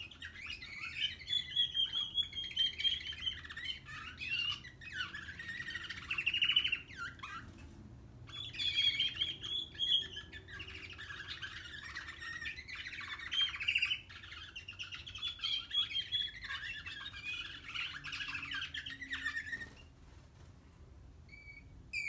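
Young male American Singer canary singing its first rambling, warbling practice song (a 'baby song', the juvenile subsong that males begin at about five months), in long phrases with brief pauses, falling silent near the end.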